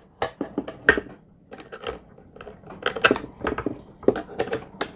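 Hard plastic parts of an antenna range-extender kit being handled on a drone remote controller: an irregular string of clicks, taps and rubs as the panel antenna and bracket are fitted and adjusted.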